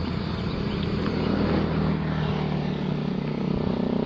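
Motor traffic passing close by: a vehicle engine running with a steady hum, getting a little louder toward the end.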